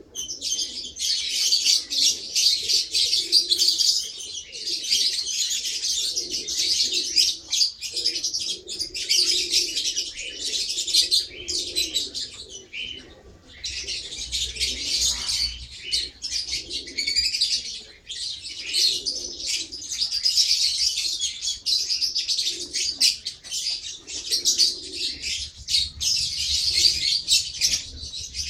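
Lovebird chattering: a nearly unbroken, high-pitched stream of rapid chirps and squeaks, with a brief pause about midway.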